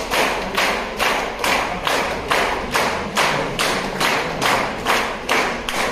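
A steady rhythmic beat of sharp strikes, a little over two a second.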